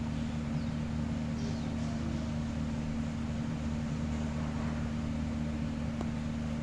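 Steady machine-like hum with a constant low tone and a hiss, with a few faint, short high chirps about one and a half to two seconds in.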